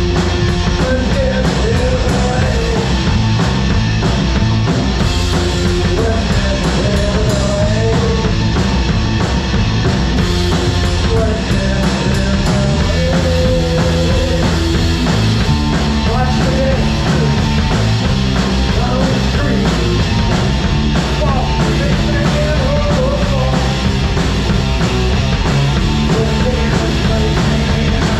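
Live rock band playing loud and steady: electric guitar and drum kit, with a man singing.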